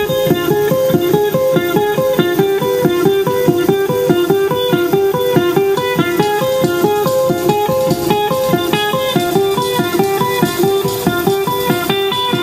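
Music: a fast, evenly repeating plucked-string figure, about four notes a second.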